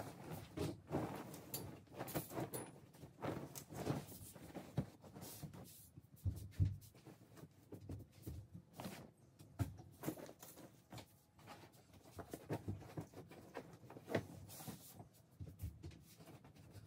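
Floral cotton duvet and pillow being shaken out and smoothed over a bed: irregular rustling of fabric with a few soft thumps, the strongest about six and a half seconds in.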